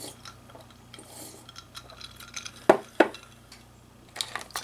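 Hard tableware clinking during a meal: two sharp clinks about three seconds in, then a few lighter taps near the end.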